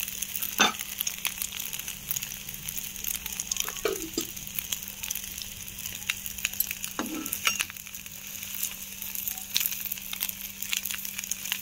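Egg omelette frying in hot oil in an iron kadai, now cooking on its second side: a steady crackling sizzle with sharper crackles here and there.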